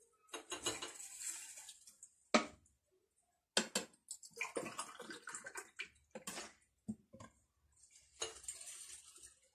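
Grape vinegar poured in three short splashing streams, measured a tea glass at a time into jars of cucumbers for pickling. Between the pours come a few sharp knocks of a glass and a plastic bottle set down on the countertop.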